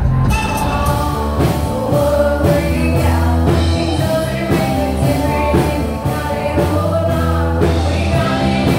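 Live rock band playing electric guitars and drums with a steady beat, a singer over it.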